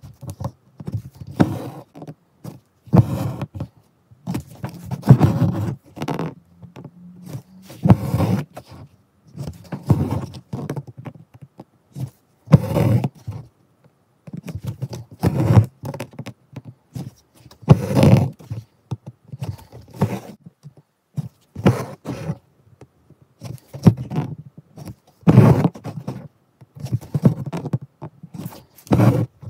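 Embroidery thread being drawn through fabric and fingers rubbing the cloth while chain stitches are worked, in short rubbing, pulling bursts every two seconds or so.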